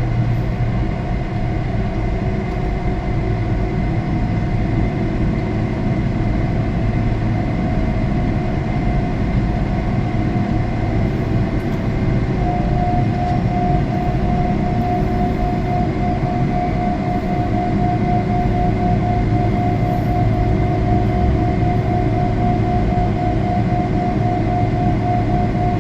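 Jet airliner engine noise heard inside the passenger cabin: a steady, even noise with a few constant hums under it. A higher steady tone joins about halfway through.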